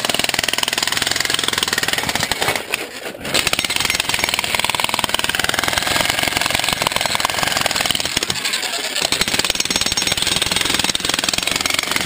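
Hitachi electric jackhammer hammering its chisel into rock, a rapid, steady pounding that stops briefly about three seconds in, then runs on.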